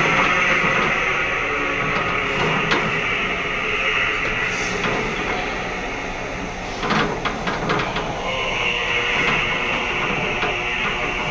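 Templar-style choral chant music playing through a speaker in a large, echoing room, with a few sharp metallic knocks from the weight machine about seven seconds in.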